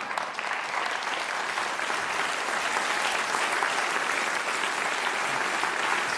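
Studio audience applauding, the clapping swelling over the first couple of seconds and then holding steady.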